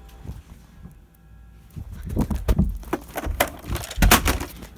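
Handling noise from a phone being moved about at close range: irregular knocks, clicks and rubbing starting about two seconds in, with the loudest knock about four seconds in.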